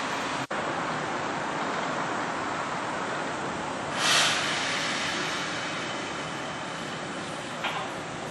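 Kintetsu commuter train approaching along the station platform, its running and wheel noise steady. About four seconds in there is a short, loud rush of hissing noise. The sound cuts out for an instant about half a second in.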